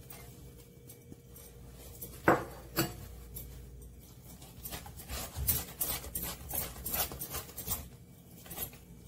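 Kitchen utensil knocking and clinking against a mixing bowl while fine rice rava is stirred into coconut-milk batter: two sharp knocks a little over two seconds in, then a run of quicker, lighter clicks.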